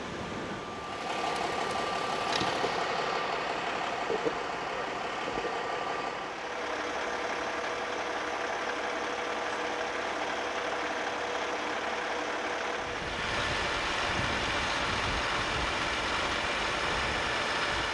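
Street traffic noise with vehicle engines idling: a steady hum that shifts abruptly a few times, about a second in, around the middle, and again after about thirteen seconds.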